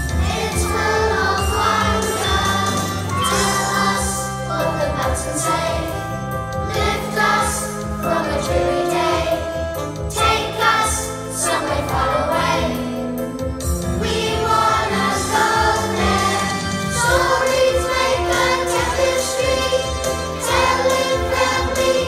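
A choir of young children singing a song together with instrumental accompaniment.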